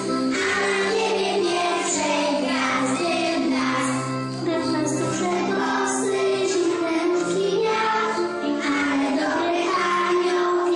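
A group of young children singing a Christmas song together, with instrumental accompaniment underneath.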